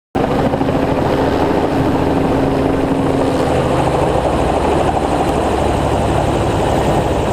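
Helicopter in flight, its rotor and engine running steadily with a rapid, even beating from the blades. The sound cuts in suddenly at the start.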